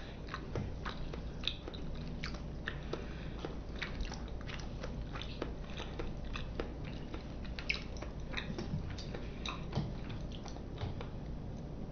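A person chewing sushi close to the microphone: a run of short, irregular mouth clicks and smacks.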